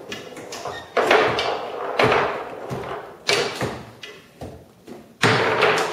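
Foosball table in play: the ball and the rod men knocking hard against the table, a handful of sharp knocks that each ring out briefly.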